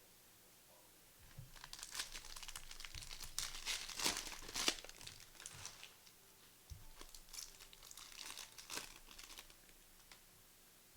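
Foil trading-card pack wrappers being torn open and crinkled, in two spells of crackling with a short pause between.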